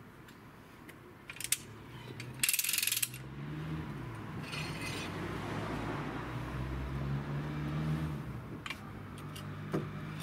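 Hi-Lift farm jack being worked on its steel bar: scattered metallic clicks and two short rattling clatters. A low steady hum runs underneath from about three seconds in.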